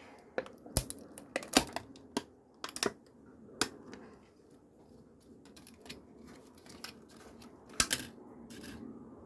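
A series of sharp clicks and taps at irregular intervals, bunched in the first few seconds with another loud pair near the end, over a faint steady background hiss.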